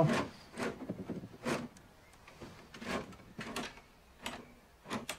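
Irregularly spaced clicks and knocks of small metal parts and hand tools being handled on a workbench.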